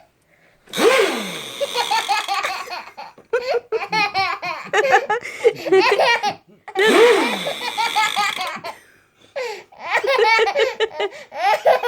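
A one-year-old boy laughing hard in long fits of belly laughter, in four runs with short breaks between them.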